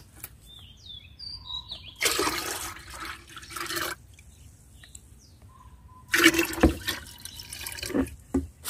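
Liquid fertilizer mix of rice-rinse water poured from a plastic bowl into a plastic watering can partly filled with water. It goes in as two pours, about two seconds in and again about six seconds in, with faint bird chirps between.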